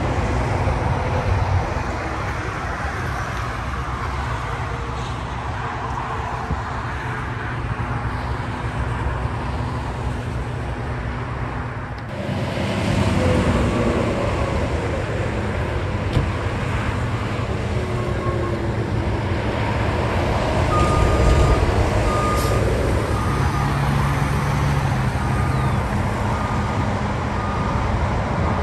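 Steady highway traffic noise mixed with the idling engines of parked fire trucks and an ambulance. In the second half, a vehicle backup alarm sounds a row of evenly spaced beeps.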